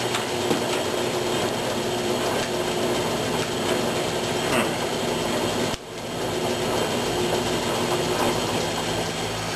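Logan 922 metal lathe running, its gear train giving a steady mechanical whir with a few light clicks, while the apron's feed clutch fails to engage. The level dips sharply just before six seconds in and comes back up.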